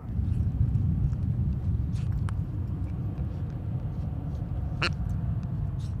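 Steady low rumble that starts suddenly, with a few faint short chirps or clicks above it, the clearest about five seconds in.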